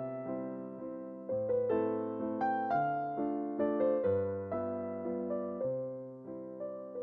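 Background music: gentle electric piano playing slow chords, with notes struck and left to fade.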